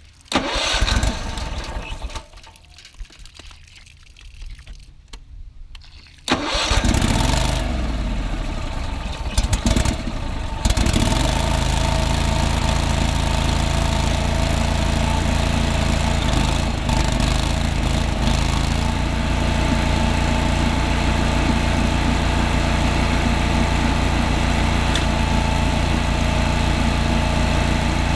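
Pressure washer's spark-ignition engine cranked by its electric starter: a short burst of cranking, then a longer uneven crank from about six seconds in, until the engine catches about ten seconds in and settles into steady running.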